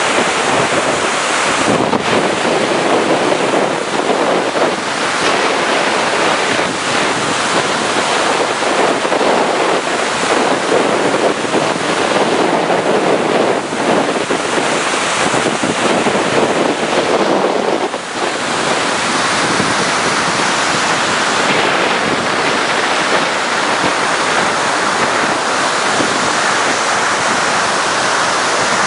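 Flash floodwater rushing loudly and steadily over the concrete energy-dissipator blocks of a desert flood-control channel, churning into standing waves.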